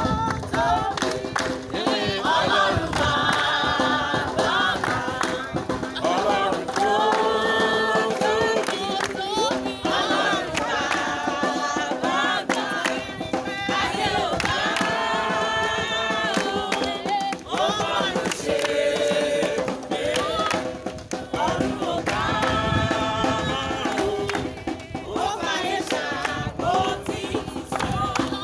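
A group of voices singing a song together, in phrases of held notes with short breaks between them.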